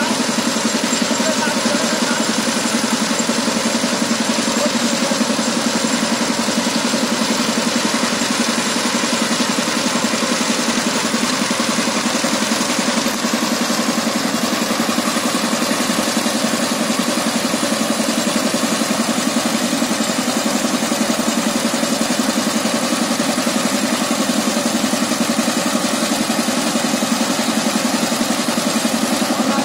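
Single-cylinder diesel engine of a two-wheel power tiller running steadily at an even, unchanging speed.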